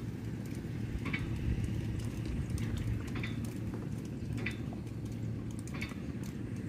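Steady low outdoor rumble with short, high chirps or clicks recurring about once a second.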